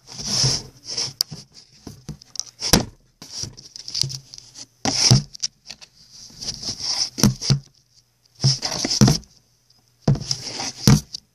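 Irregular scratchy rubbing and scraping with sharp taps and clicks: handling noise from the filming device and plastic toy horses being moved across the cardboard of a box stable.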